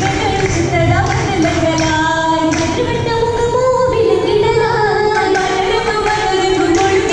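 Girls' voices singing an Oppana song, the Mappila wedding song of Kerala, in a group with long held, gliding melodic lines.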